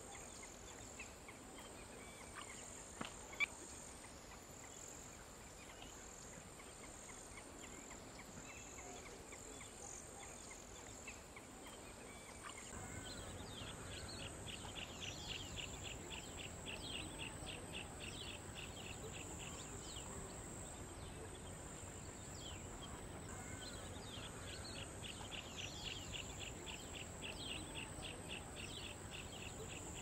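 Faint outdoor field ambience with a steady high hiss, and a single sharp click a few seconds in. From about halfway, a bird gives two long runs of short, high notes repeated rapidly, each run lasting several seconds.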